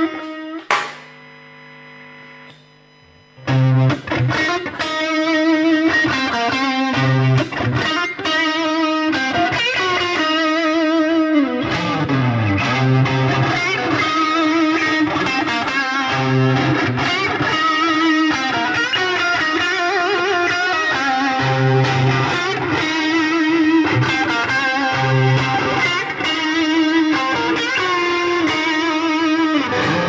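Distorted electric guitar played through a DigiTech RP255 multi-effects processor on a distortion patch, into a Marshall MG15 amp, over a backing track with bass. About a second in the playing drops to a quiet held note, then busy distorted riffing resumes about three and a half seconds in and runs on.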